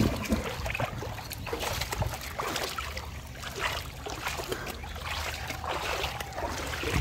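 Shallow muddy water splashing and sloshing in irregular bursts as someone thrashes, grabs and wades through it by hand.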